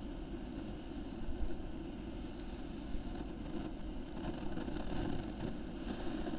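Torch nozzle on a portable gas canister running steadily, its flame held on one spot to light damp firewood. A few faint clicks sound over the steady noise.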